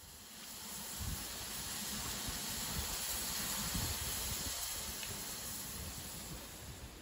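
Steady hiss of steam from a standing steam locomotive, with irregular low rumbles of wind on the microphone.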